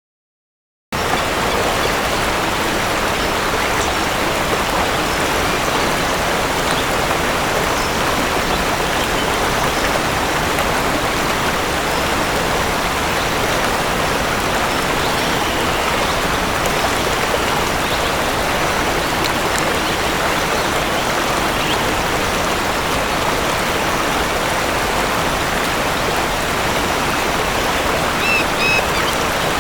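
Waterfall sound effect: steady, loud rushing of falling water that starts abruptly about a second in. A few faint high chirps sound near the end.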